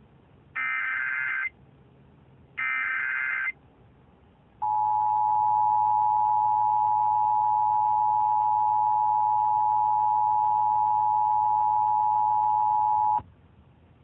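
Emergency Alert System signal heard over AM radio: the last two of the three digital SAME header bursts, each about a second long and two seconds apart. About a second later comes the steady two-tone EAS attention signal, held for about eight and a half seconds, which then cuts off sharply.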